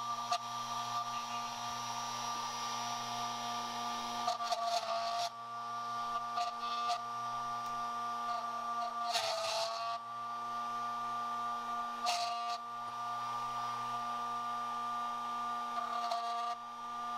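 HPC Scotsman tubular key duplicator's motor and cutter running with a steady whine, cutting the notches of a tubular key blank one cut at a time. Four times there is a short, louder burst of cutting noise as the cutter works the next cut.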